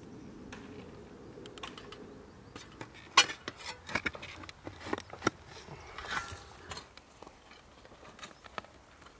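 A shovel digging a pit in stony earth: a series of sharp strikes and scrapes of the blade, the loudest about three seconds in, then a longer rustle of loose soil about six seconds in.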